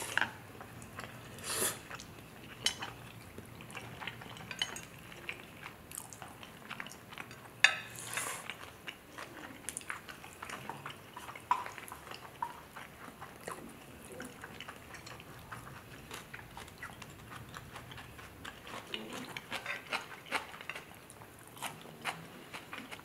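Quiet eating sounds: chewing of Chapaguri noodles and steak, with scattered clicks of wooden chopsticks against the dish and a few louder mouth noises about 1.5 and 8 seconds in.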